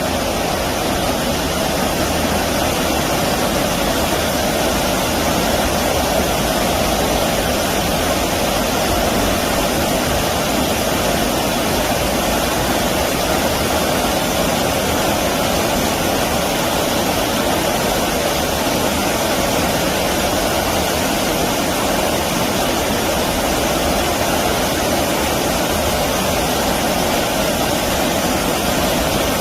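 Stream water rushing steadily, an unbroken even rush with no break or change.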